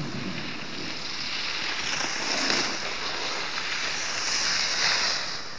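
Edges sliding and scraping over hard-packed piste snow, a steady hiss that swells twice, with wind rushing on the microphone.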